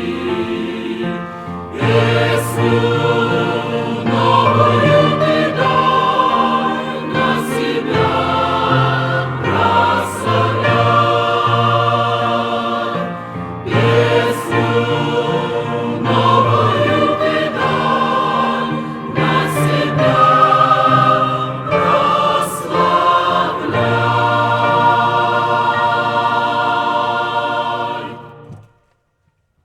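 Choir singing a hymn in several voice parts, phrases breaking every few seconds; the singing stops abruptly near the end.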